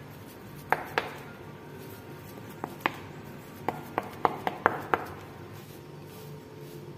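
Wooden spatula tapping and knocking against a stainless steel plate while pressing and shaping a soft carrot burfi mixture flat: about ten sharp taps, a pair about a second in and a quick cluster between about two and a half and five seconds in.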